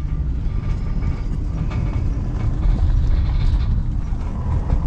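Steady low road rumble inside a Ford van's cab as it drives along a dirt road, with tyre and road noise and a few faint clicks and rattles.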